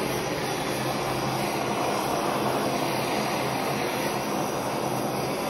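Handheld gas kitchen blowtorch burning with a steady hiss of its flame.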